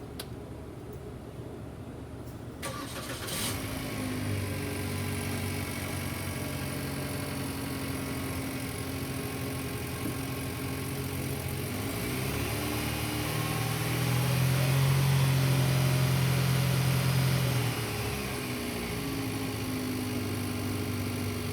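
2015 Chevy Colorado 4x4's engine cranking and starting about three seconds in, then idling steadily. Around the middle it is revved, held at higher revs for a few seconds, then drops back to idle.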